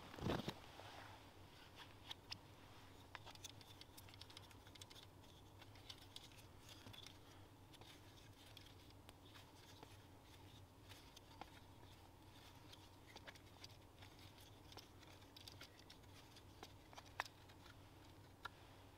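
Faint scattered clicks and light knocks as the wooden frame pieces, twisted-cord tensioner and metal blade of a wooden bow saw are handled and fitted together. There is a louder knock right at the start.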